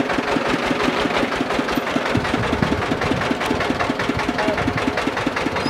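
Diesel generator engine of a sugarcane juice truck running steadily, with an even beat of about nine pulses a second. The same engine both drives the truck and powers its juice press.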